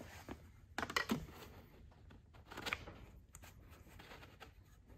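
Plastic water bottle being pushed into a bicycle bottle cage: a few light clicks and knocks, the loudest about a second in.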